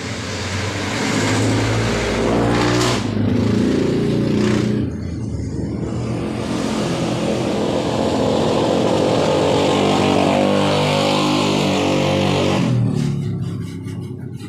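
A motor vehicle engine running loud and revving, its pitch shifting. It swells about two seconds in and dies away near the end.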